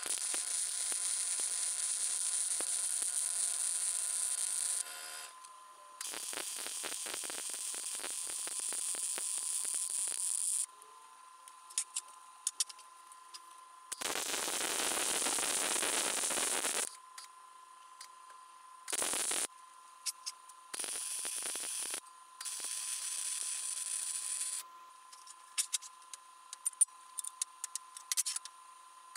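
Electric arc welding on steel angle: about six crackling, hissing welding runs, some several seconds long and some brief tacks, stopping and restarting. A faint steady tone and scattered sharp ticks fill the pauses between runs.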